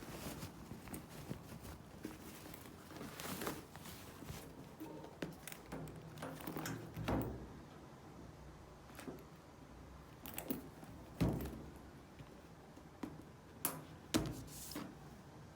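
Scattered light knocks, clicks and rustling from objects being handled in a small room, the sharpest knocks about eleven and fourteen seconds in.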